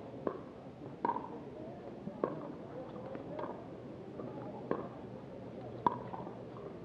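Pickleball paddles hitting a plastic pickleball back and forth in a soft exchange at the net: six sharp pocks, a little over a second apart.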